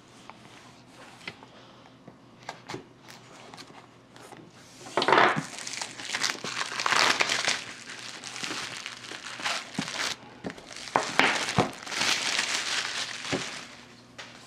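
Plastic shrink-wrap being slit and pulled off a cardboard box: a few light scrapes and clicks at first, then from about five seconds in, loud crinkling and tearing in several spells as the film comes away.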